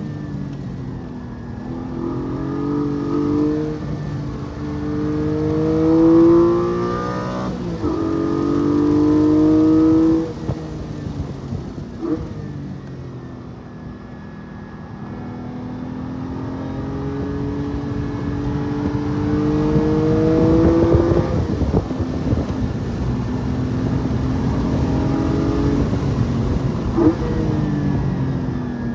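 Porsche 718 Cayman GT4's naturally aspirated flat-six revving up repeatedly under throttle in second gear, heard from inside the cabin, with sharp lift-offs about seven and ten seconds in and again past twenty seconds. Between the pulls the engine drops to a lower, quieter note before climbing steadily again.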